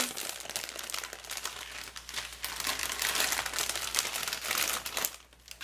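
Clear plastic bag holding packets of diamond painting drills crinkling as it is handled, stopping about five seconds in.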